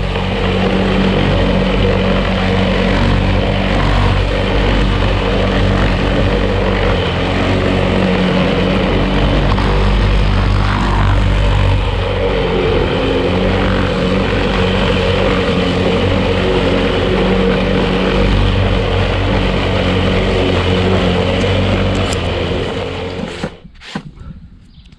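Outils Wolf lawn mower engine running steadily under load in tall grass, then shut off about 23 seconds in and winding down.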